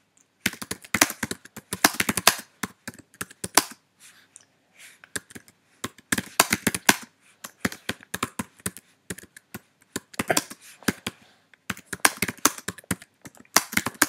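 Typing on a computer keyboard: rapid keystroke clicks in quick runs, broken by short pauses.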